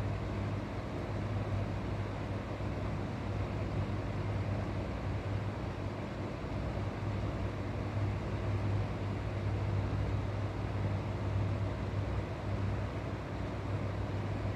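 A steady machine hum with a strong low drone, unchanging throughout.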